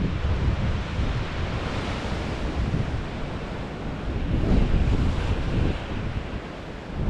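Wind buffeting the microphone over Pacific Ocean surf washing ashore, a steady rushing noise that dips briefly near the end.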